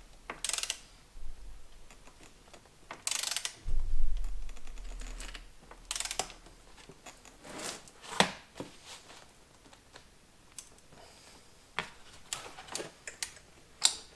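Ratchet wrench being worked in short spells of rasping clicks, with a few knocks and bumps in between: tightening the seat belt pretensioner's bolt, to be torqued to 33 lb-ft.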